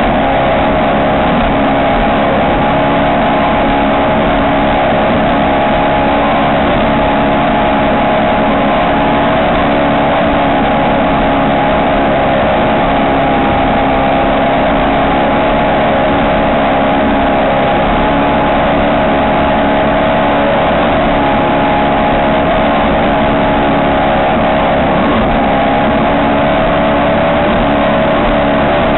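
Ski race boat's engine running loud at a steady, unchanging pitch, over a continuous rush of noise.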